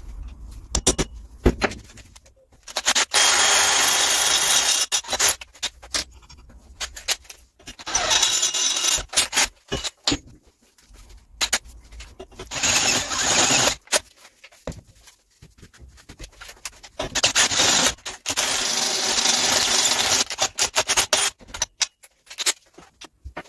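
DeWalt cordless drill with a step drill bit cutting a hole through a metal boost pipe held in a vise, in four long bursts of drilling. Short clicks and knocks from handling come between the bursts.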